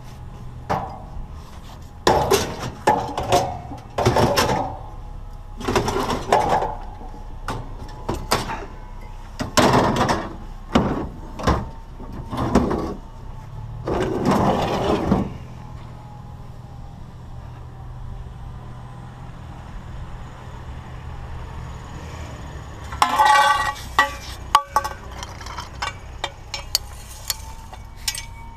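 Repeated clanks and scrapes of scrap metal being handled, in a run of bursts through the first half and again about 23 seconds in, over a steady low engine hum.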